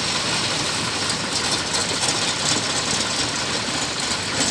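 Long-tail boat engine running steadily, its propeller churning the water.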